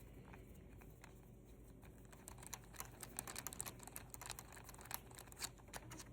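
Faint, quick, irregular small clicks and ticks of a Phillips screwdriver working the screw out of a fishing reel's handle knob, starting a little over two seconds in.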